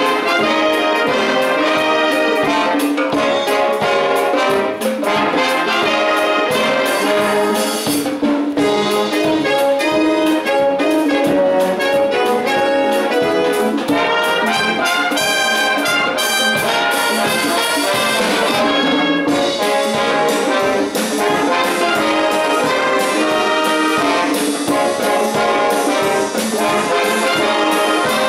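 Youth wind band playing a Cuban-style dance piece: brass, saxophones and woodwinds over drums.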